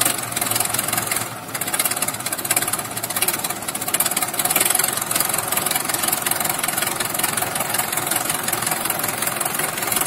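Two tractor diesel engines, the Sonalika 750's four-cylinder and the Farmtrac Champion's three-cylinder, labouring under heavy load as they pull against each other. They run steadily with a dense, rapid firing beat.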